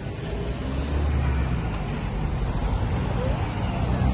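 Motor vehicle engine running with road traffic noise, a steady low rumble that grows louder about a second in.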